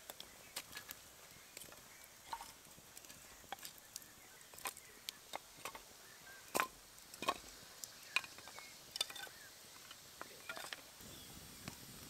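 Newly lit campfire of dry split kindling catching: sharp, irregular crackles and pops, which stop about eleven seconds in.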